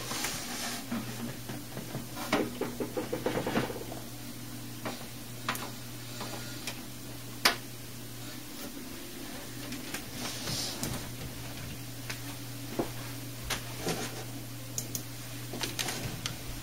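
Scattered small clicks and light knocks of hands working at a computer desk, with a quick run of rattling clicks about three seconds in, over a steady low hum from the running computer.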